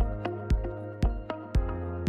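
Background music with a steady beat, about two beats a second, over sustained chords.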